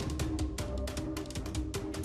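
Background music with a fast, driving drum beat over held notes and a deep bass.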